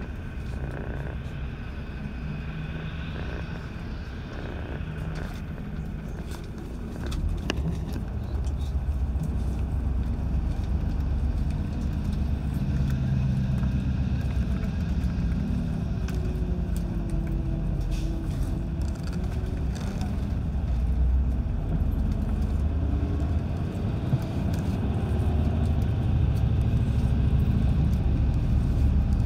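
Route bus heard from inside the passenger cabin: its diesel engine running with a steady low rumble of road and tyre noise, getting louder about seven seconds in.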